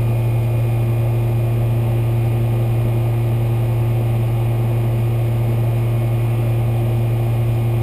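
Central air conditioner's outdoor condensing unit running, with its compressor and condenser fan making a steady low hum. The system is being charged with refrigerant while it runs.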